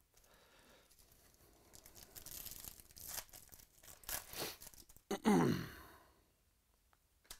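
A foil trading-card pack wrapper being crinkled and torn open by hand. About five seconds in, a short falling sigh is the loudest sound.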